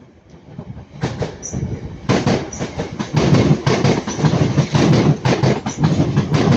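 Northern Class 323 electric multiple unit passing close by, its wheels clattering over the rail joints. It builds from about a second in and is loud from about two seconds in.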